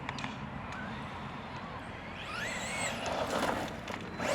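Electric motor of a Traxxas Slash 2WD RC truck whining up and then down in pitch about two seconds in as it is throttled, over a steady rough rumble of its tyres on the ground.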